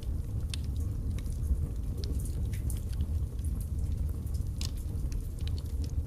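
Wood fire burning in a fireplace: a steady low rumble of flames with irregular sharp crackles and pops from the burning logs.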